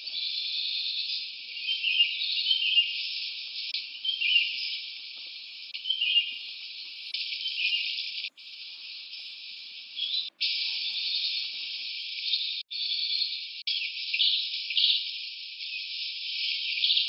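Forest ambience: a steady, high insect buzz with short high chirps over it. It is cut off abruptly for a moment several times in the second half.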